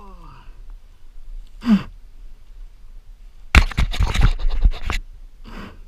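A man groaning and grunting with heavy breaths, and about three and a half seconds in a loud burst of scraping and rubbing right on the helmet camera's microphone that lasts over a second.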